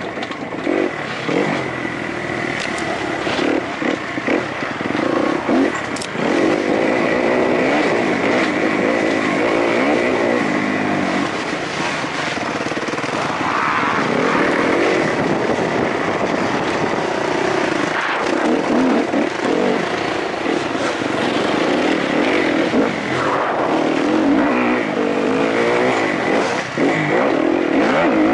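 Kawasaki KXF four-stroke single-cylinder motocross bike engine revving hard, its pitch climbing and dropping over and over as the rider works through the gears at race pace.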